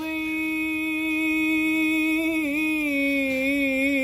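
A young man singing an unaccompanied Islamic religious chant (inshad), holding one long note that turns into a wavering melismatic ornament about two and a half seconds in.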